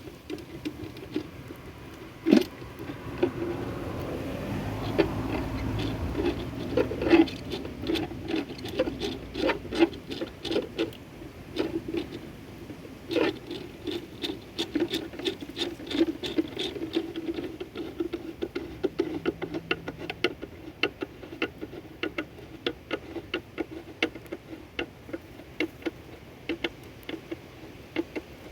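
Parts of a dual-flush toilet valve being handled and unpacked: many irregular clicks and taps, with a stretch of steadier rubbing noise a few seconds in.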